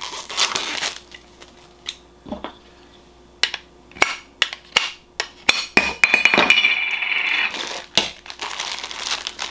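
A Funko Soda collectible can being handled and opened: a run of sharp clicks and clinks, with a scraping stretch of about two seconds just past the middle.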